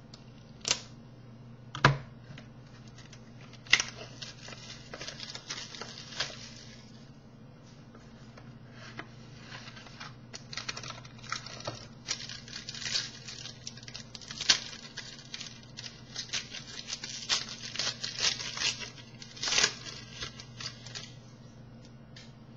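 A sealed 2012 Topps Tier One baseball card box being opened by hand: a few sharp clicks and knocks in the first few seconds, then bursts of tearing and crinkling wrapper through most of the rest. A steady low hum lies underneath.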